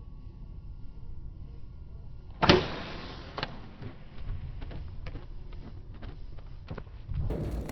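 A single sharp knock about two and a half seconds in, followed by a few fainter clicks, over a steady low rumble.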